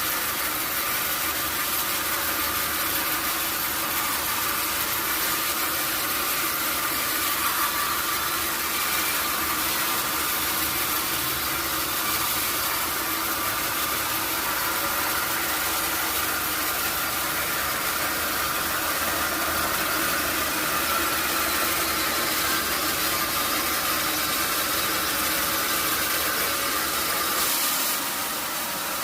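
Sawmill saw running steadily: a constant mechanical drone with a steady high whine, dipping briefly near the end.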